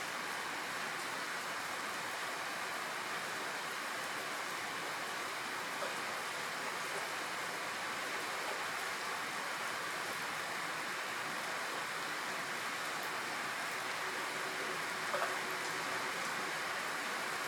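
Steady rain falling, an even hiss, with one brief faint tap near the end.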